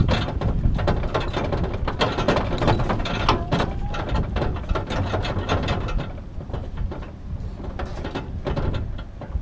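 Groove mountain bike and its carrier rack rattling and clicking irregularly as the vehicle carrying them jolts over a bumpy dirt road, over a steady low noise from the moving vehicle. The rattling is densest in the first six seconds.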